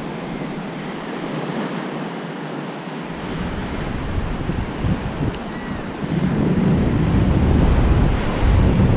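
Surf breaking and washing up a sandy beach, with wind buffeting the microphone; the low rumble of the wind grows heavier about two-thirds of the way through.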